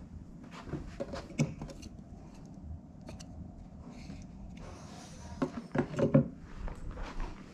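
Handling noise: scattered light knocks and rubbing as small objects, a round slice of wood among them, are picked up and moved, with a run of louder knocks about five and a half to six seconds in.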